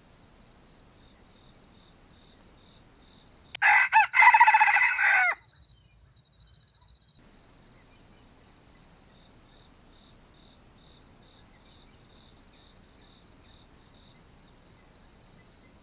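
Rooster crowing once, loud and close, about four seconds in, the crow lasting under two seconds. A faint, steady, pulsing insect trill runs underneath.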